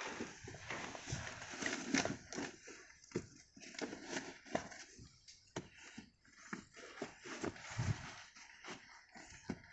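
Handling noise in a car's footwell: irregular soft knocks and rustles as a floor mat is pushed and settled into place.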